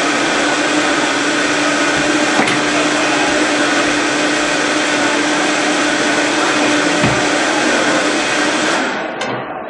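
Vitamix blender running on high, blending watermelon chunks into juice and drawing air into it: a loud, steady whir whose low hum drops out about seven seconds in, with the motor stopping near the end.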